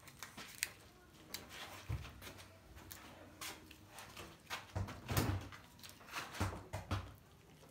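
Manual tire changer's steel lever bar being worked around a small wheel rim to lever the tire bead off: scattered clicks, scrapes and metal knocks, with heavier thumps about two seconds in and several more in the second half.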